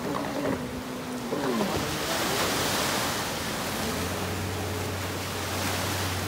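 Yamaha FZR SVHO jet ski's supercharged 1812cc four-stroke engine, its note swinging up and down in the first second and a half as the craft turns through chop, over a steady rush of spray and waves; from about four seconds in the engine settles to a steady low note as it slows.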